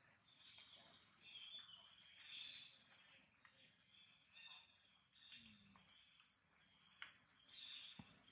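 Faint outdoor ambience with scattered short, high bird chirps, the loudest about a second in, and a couple of brief clicks near the end.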